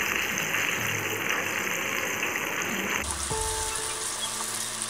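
Coated chicken pieces deep-frying in hot oil, a steady dense sizzle. About three seconds in the sizzle changes abruptly to a brighter, hissier sound.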